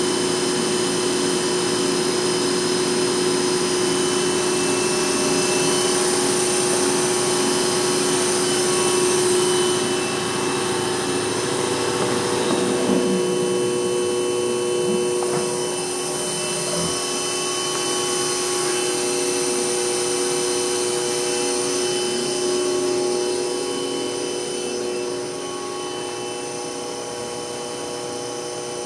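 Hurco VM1 vertical machining center running a program, its spindle turning at about 4,100 rpm: a steady machine hum with a whine made of several steady tones.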